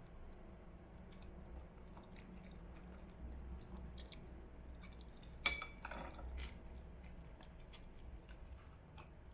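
Quiet handling of dishes and utensils: scattered light clicks and taps over a low hum, with one sharper clink about five and a half seconds in.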